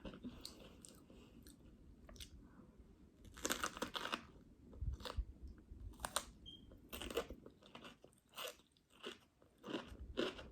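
Close-up chewing of a jalapeño stuffed with cream cheese and Takis: crisp crunches come in irregular clusters between quieter mouth sounds, the loudest about three and a half seconds in.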